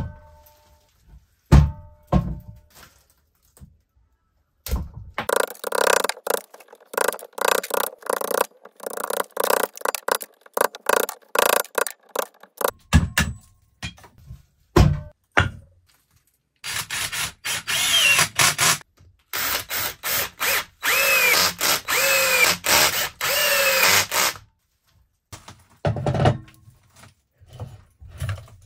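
Workshop sounds of a wooden blank being made ready for turning: a couple of knocks as the blank is handled, a power drill running in many short bursts, several separate hammer strikes on a punch set into the blank's end grain, then longer drill runs whose whine rises and falls.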